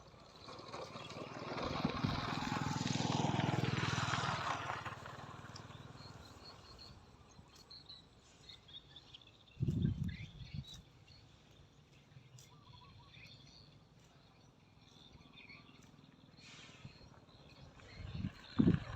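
A motor vehicle, likely a motorbike, passes by: it grows louder over a couple of seconds and then fades. A short low thump follows about ten seconds in, with faint bird chirps throughout.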